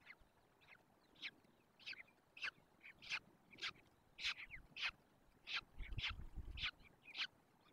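Peregrine falcons calling at the nest: a run of short, sharp high calls, about two a second, growing louder through the middle. A brief low rumble comes about six seconds in.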